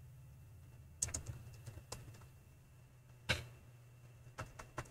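Typing on a computer keyboard: scattered key clicks, one louder click after about three seconds, then a quicker run of keystrokes near the end.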